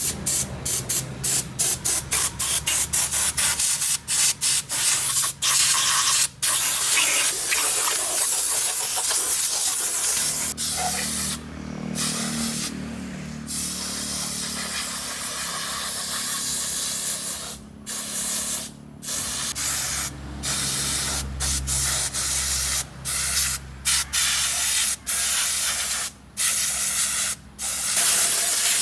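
Pressurised spray hissing in many short bursts, with a longer unbroken stretch through the middle, as hydraulic control valve parts are cleaned. A low hum runs underneath through the middle.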